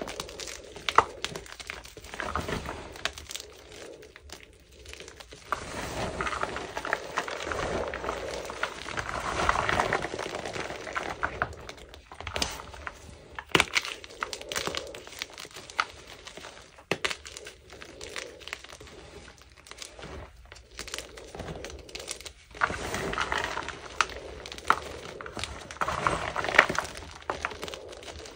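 Blocks of gym chalk made with fabric softener being crushed and crumbled by hand in a bowl: a continuous dry crunching and crackling, with sharp cracks now and then as chunks break apart.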